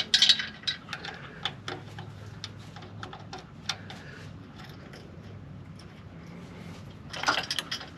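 Light metal clicks, taps and rattles of a suspension part and its hardware being worked by hand onto a pickup's front axle, many in the first few seconds and a louder cluster about seven seconds in.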